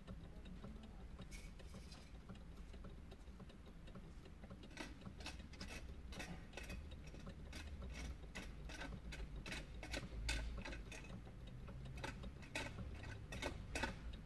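Light clicking, about three clicks a second and slightly uneven, starting about five seconds in, over a low steady rumble.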